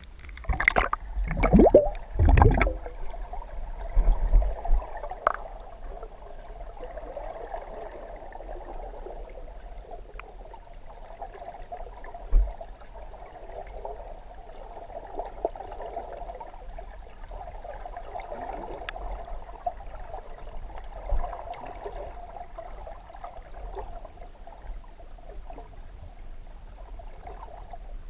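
Water splashing and gurgling around a camera at the surface for the first few seconds as it goes under, then the steady, muffled wash of water heard with the camera submerged, with a couple of single light knocks.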